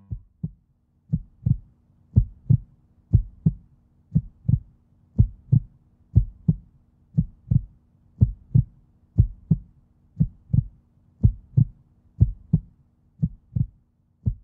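Heartbeat sound effect: paired low thumps, lub-dub, about one beat a second, over a faint steady hum.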